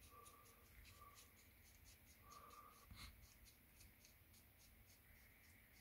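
Faint, rapid small clicks and scratches of a Badger Patriot 105 airbrush's metal parts being handled and screwed together, with one louder click about three seconds in.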